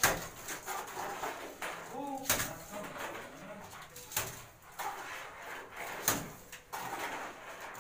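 A steel trowel scooping mortar from a bucket and flicking it onto a lightweight concrete block wall as a thin spatterdash coat, with a sharp clack about every two seconds.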